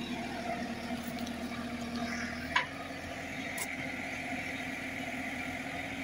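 JCB 3CX backhoe loader's diesel engine running steadily, with a single sharp click about two and a half seconds in and a higher steady whine rising over the engine from about three seconds.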